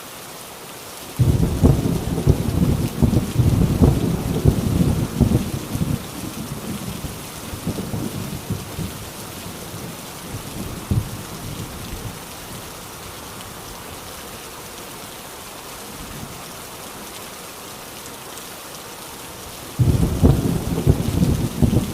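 Heavy rain falling steadily, with a loud thunderclap about a second in whose rumble crackles and fades over several seconds. Another sudden loud thunderclap breaks near the end.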